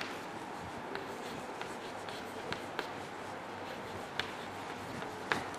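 Chalk writing on a blackboard: faint, irregular taps and scratches of the chalk strokes over a steady background hiss.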